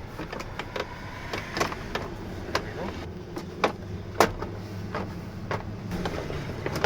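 Ford Transit interior door trim panel being handled and offered up to the door: a string of scattered clicks and knocks, the sharpest about three and a half and four seconds in, over a steady low hum.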